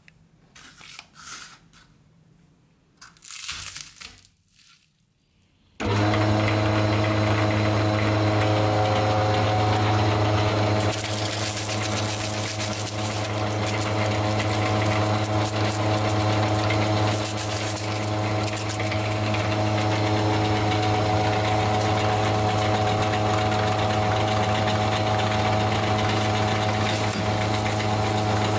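A few light clatters of wafer ice cream cones handled on a wooden cutting board, then a motor-driven cast-metal meat grinder starts suddenly and runs with a steady hum. A few seconds later a gritty crunching joins the hum as wafer cones are fed in and crushed through the grinder plate.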